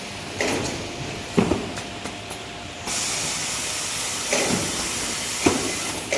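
Toilet-paper roll band saw cutting machine running: separate mechanical clunks about once a second, with a steady hiss setting in about three seconds in.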